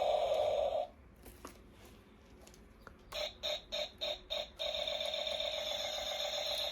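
Electronic buzz from a toy gun's sound module through a small speaker: a steady buzz that cuts off under a second in, then after a pause about six short pulses at roughly four a second, then the steady buzz again.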